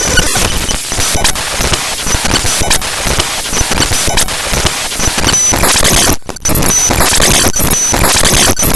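The raw bytes of HandBrake's hb.dll library file played back as sound by Binary Waterfall: loud, dense, harsh noise full of clicks and crackle, with short high-pitched beeps coming and going. It drops out briefly about six seconds in.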